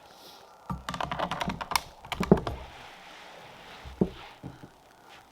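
A run of quick small clicks and rattles from handling a bolt-action .22 rimfire rifle and its gear, with a single sharper click about four seconds in.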